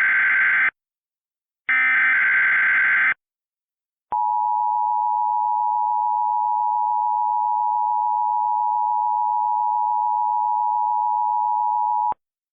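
Emergency Alert System SAME header data bursts, a harsh electronic screech, the last two of three bursts about a second and a half each with a pause between. Then the EAS two-tone attention signal (853 and 960 Hz) holds steady for about eight seconds and cuts off sharply, announcing a new alert.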